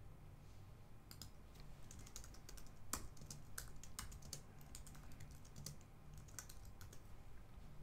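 Faint typing on a computer keyboard: a run of irregular, quick keystrokes.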